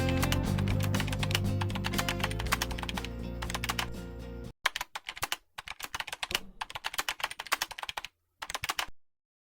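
Typing sound effect: rapid, uneven key clicks for a text animation, over background music that cuts off about halfway through. After that the clicks go on alone with a few short pauses, then stop just before the end.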